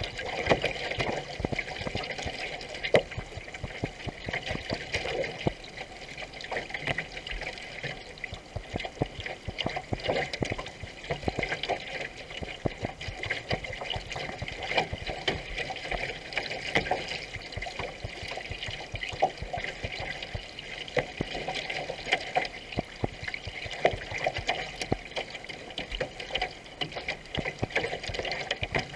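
Continuous water splashing and rushing close by from paddle strokes and a racing canoe's hull moving fast through river water, with many irregular small splashes.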